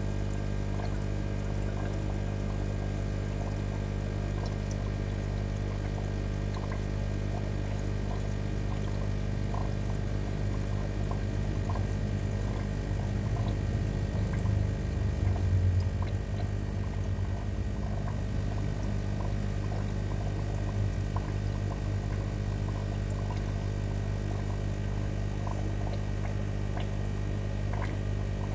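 Aquarium water bubbling and trickling over a steady low hum of the filter pump, with faint small clicks throughout; the low rumble swells briefly about halfway through.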